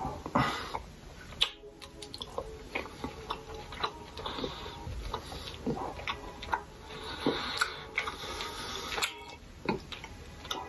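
Close-miked eating sounds: a metal fork clicking and scraping against a ceramic bowl while picking up egg noodles, with chewing and mouth noises, in irregular short taps.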